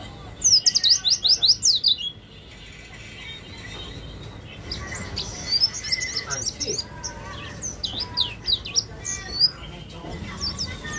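Caged yellow-breasted white-eye (pleci) singing in its rough, chattering 'ngeriwik' style. It opens with a fast run of about eight loud, falling high notes, then from about halfway goes into a rambling string of varied chirps and trills.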